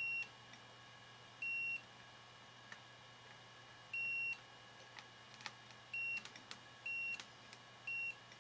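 A DT-832 digital multimeter's continuity buzzer giving five short high beeps at uneven intervals as the probe tips touch points on a circuit board. Each beep signals a low-resistance connection between the probed points. Faint ticks of the probe tips on the solder joints come between the beeps.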